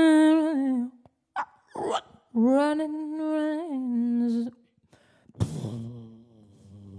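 A woman's improvised vocal: two long held tones with a slightly wavering pitch, broken by short breathy gasps between them. About five and a half seconds in, a sudden, much lower sound comes in and carries on.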